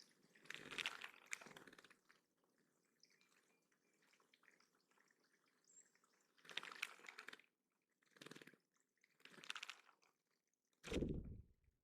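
Water splashing in five short bursts, as a small bird bathes in a shallow bird pond; the last splash, near the end, is the loudest and deepest.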